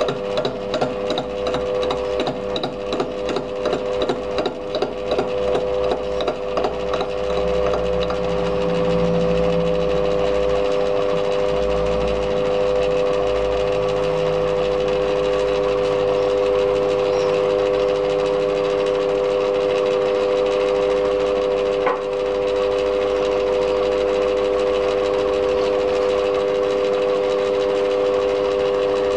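Lathe fly cutter taking an interrupted cut on the end face of a cylinder casting, striking the work two or three times a second. After about seven seconds the strikes stop and only the lathe's steady running hum remains, with a single sharp click a little past twenty seconds.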